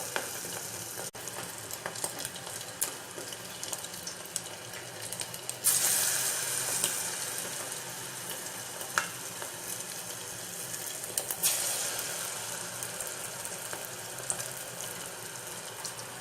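Kunukku, balls of rice-and-lentil batter, deep-frying in hot oil in a kadai: a steady crackling sizzle, with a louder surge about six seconds in. The sizzle is still loud because the fritters are still cooking through; it dies down once they are done.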